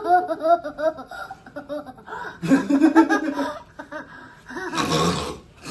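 People laughing in quick, choppy bursts of voice, with a louder breathy burst of laughter about five seconds in.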